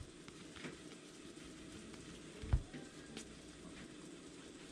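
Baseball trading cards sliding and rubbing against each other as a pack is flipped through by hand, with small clicks of card edges and one dull thump about halfway through.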